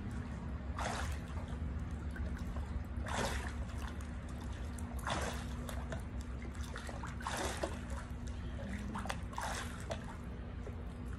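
Pool water sloshing and splashing around a person squatting up and down in waist-deep water, a swash about every two seconds, over a steady low hum.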